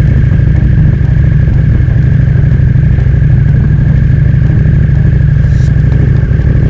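A motorcycle engine running at low road speed, mixed with wind rumble on the microphone, with a thin steady high whine over it.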